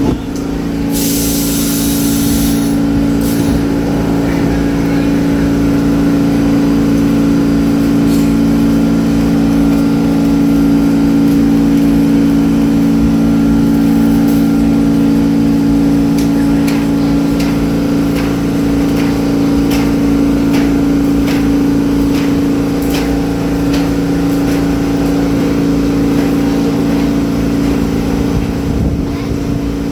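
New York City subway train standing with its equipment giving a loud, steady hum that holds one pitch, not rising as it would when pulling away. A short burst of air hiss comes about a second in, and faint clicks come later.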